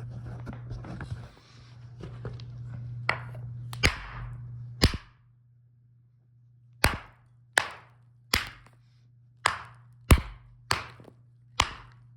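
Small hand hammer striking a thin flat rock: about ten sharp blows, a few spaced ones, then a steady run a little under a second apart. A low steady hum runs underneath.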